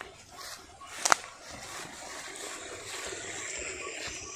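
Footsteps through grass and undergrowth, with leaves and stems rustling against the legs, and one sharp click about a second in.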